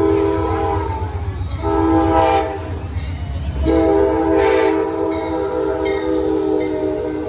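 Locomotive air horn sounding a multi-note chord in blasts: one ending about a second in, a short blast after it, then a long blast from about four seconds in, over the low, steady rumble of the passing train.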